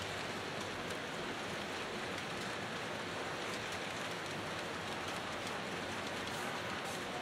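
HO scale model trains rolling along the track, a steady hiss-like rumble of wheels and motors with faint scattered ticks.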